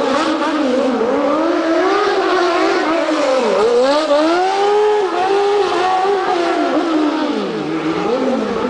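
Red single-seat buggy's engine being driven hard through drifts, revving up and down over and over. Its pitch dips lowest about three and a half seconds in and again near the end.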